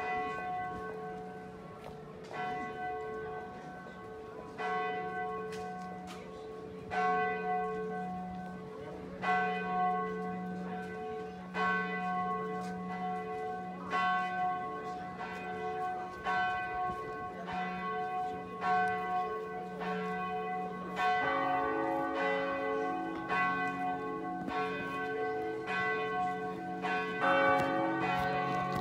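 Swinging church bells of the Sint Martinuskerk in Weert ringing in at the start of a partial peal. One bell strikes at a slow, steady pace, about once every two seconds, each stroke ringing on. About 21 seconds in, a second bell joins and the two sound together.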